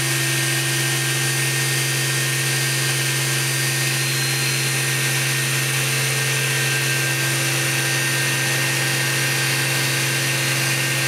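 Daewoo Mynx 540 vertical machining center's 20 HP CAT 40 spindle running free at its top speed of 8,000 RPM, not cutting: a steady, unchanging tone with a hiss above it.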